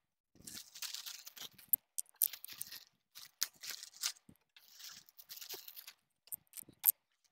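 Clear plastic packaging bags crinkling and rustling in irregular spurts as cables are pulled out of them, with a few sharp clicks as items are handled and set down.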